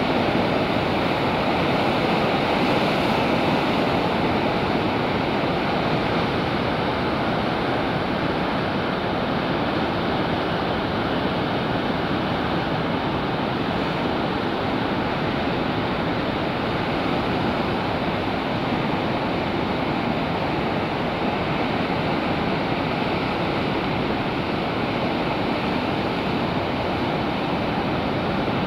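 Ocean surf breaking and washing over rocks: a steady, continuous rush of waves and churning foam, with no single crash standing out.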